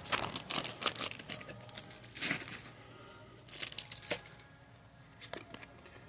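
Crinkling and tearing of a foil booster-pack wrapper, a dense crackle at first, then a few separate sharp crackles that thin out toward the end.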